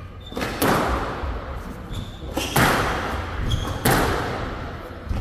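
Squash rally: the ball is struck hard by the rackets and smacks the walls, four sharp hits about one and a half seconds apart, each echoing around the court, with short high squeaks between.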